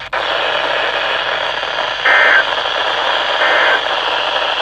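Weather radio receiver hissing with static, broken twice by short, loud warbling data bursts about a second and a half apart. These are the SAME digital end-of-message code that closes a NOAA Weather Radio warning broadcast.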